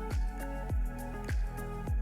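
Background music with a steady beat: a low thumping kick drum about every 0.6 s under sustained synth tones.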